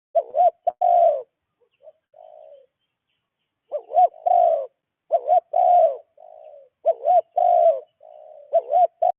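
A dove cooing in repeated phrases. Each phrase is a few loud, looping coo notes followed by a softer, drawn-out coo, and the phrases come about every one to three seconds.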